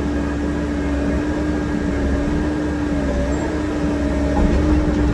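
Heavy dump truck loaded with boulders, engine running with a steady drone and a level hum over a low rumble.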